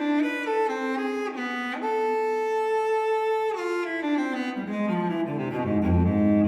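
Instrumental background music: a melody moving note to note, one long held note in the middle, then falling step by step into low, deep notes near the end.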